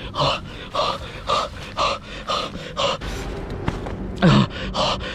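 A frightened woman breathing hard and fast in panic, short gasping breaths about twice a second, with a brief falling moan about four seconds in.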